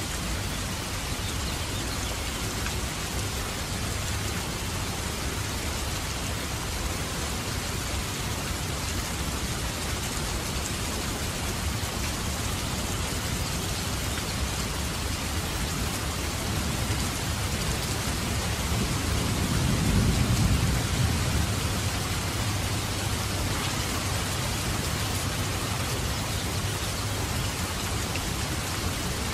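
Steady rain falling in an even hiss. About two-thirds of the way through, a low rumble of thunder swells, peaks and fades over a few seconds.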